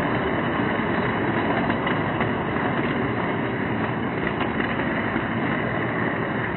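Model freight train cars rolling steadily along their toy track, a continuous noise of small metal wheels on the rails.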